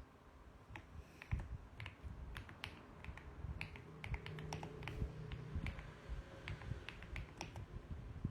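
Mechanical keyboard being typed on: irregular keystroke clicks in quick runs with short pauses, starting about a second in.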